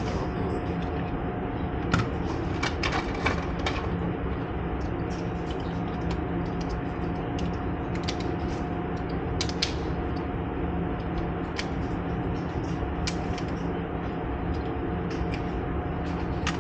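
A steady machine hum with scattered light clicks and taps, a small run of them about two to four seconds in.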